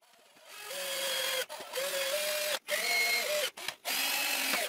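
A 14.4 V cordless drill/driver drives screws into nylon wall plugs in a concrete block. Its motor whines at a steady pitch and stops and starts several times.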